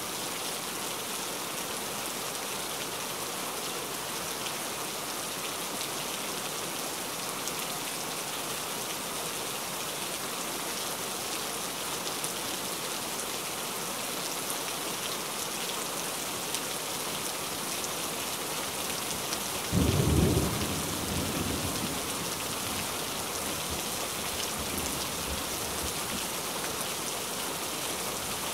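Steady heavy rain, with a sudden loud clap of thunder about twenty seconds in that rumbles away over a couple of seconds, followed by fainter rumbles.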